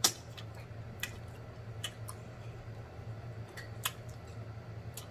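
Wet mouth clicks and lip smacks while chewing, the sharpest one right at the start as fingers are licked, then a few scattered clicks about a second apart, over a faint steady low hum.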